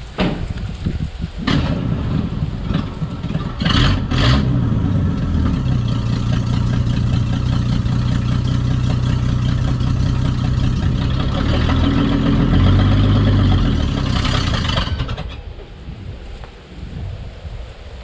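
The 1976 Chevrolet C10's inline-six engine running, with two sharp knocks about four seconds in. It settles into a steady note that shifts around twelve seconds in and falls away about fifteen seconds in.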